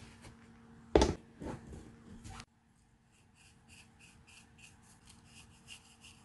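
Bottles knocking against each other in a plastic bin, one sharp knock about a second in and a few lighter ones after it. Then a brush dabbing varnish onto a wooden earring in faint, quick, scratchy strokes, about four a second.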